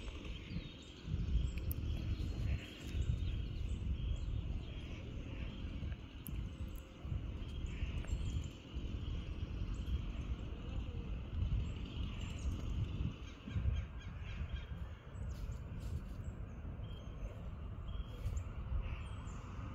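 Outdoor ambience: an uneven low rumble of wind buffeting the microphone, with short bird calls scattered through it.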